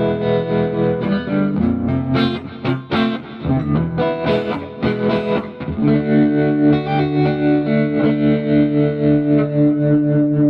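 Electric guitar through a Fulltone Supa Trem ST-1 tremolo pedal and a Mesa Boogie Mark V amp: picked notes and chords, then about six seconds in a chord left ringing, its volume pulsing evenly from the tremolo.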